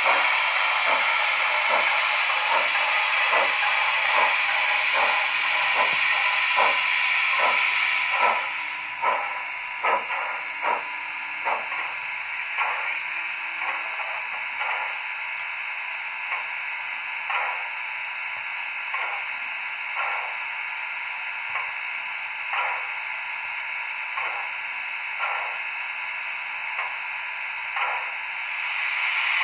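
Steam-locomotive sounds from the LokSound V5 decoder of an HO-scale model, played through its small speakers: a loud steam hiss that cuts off about eight seconds in and comes back near the end, with a steady beat of short puffs about once a second throughout.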